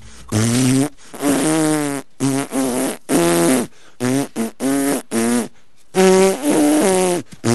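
A voice making a string of about a dozen buzzy, raspberry-like blows through the lips, short and long, some wavering in pitch. This is a would-be whistle that comes out as spluttering lip buzzes instead.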